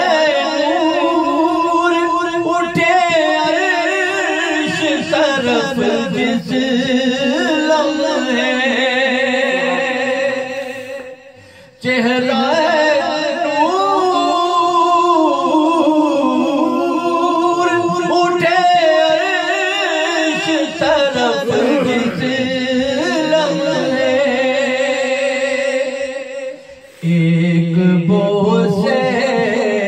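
A man singing an Urdu devotional song (naat) unaccompanied into a hand microphone, in long drawn-out phrases with wavering held notes. The singing breaks off briefly about 11 seconds in and again near the end before the next phrase.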